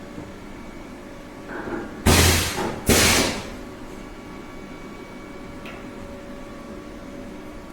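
Steady hum of machinery with faint steady tones, broken about two seconds in by two loud bursts of hissing noise, the first longer than the second, close together.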